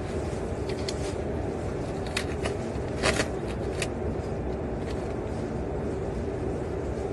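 Steady low rumble of a private jet's cabin, with a few short clicks and rustles, the loudest about three seconds in.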